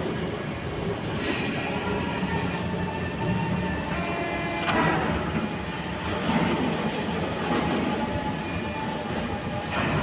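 Steady factory machinery noise: a running hum with faint high squealing tones and a sharp metallic knock about five seconds in.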